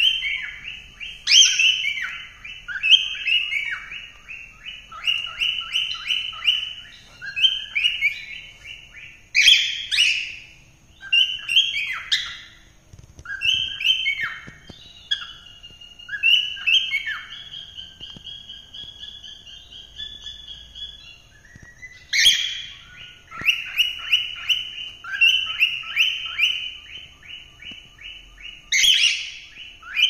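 Cockatiels singing and chattering: runs of fast warbling chirps, a long held whistle about halfway through, and a few loud, sharp calls spaced through it.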